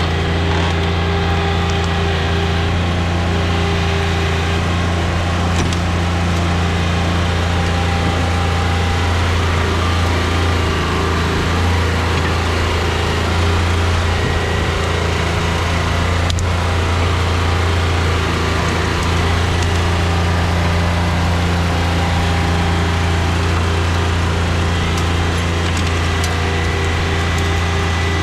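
John Deere 2320 compact tractor's three-cylinder diesel engine running at a steady speed, a low even drone, with one brief knock about sixteen seconds in.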